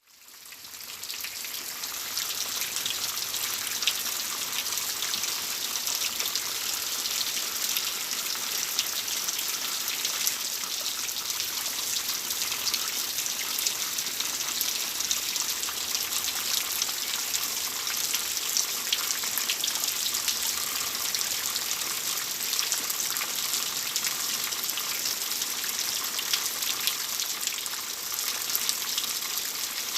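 Steady rain: a dense hiss of falling drops with many small drop ticks, fading in over the first second or two.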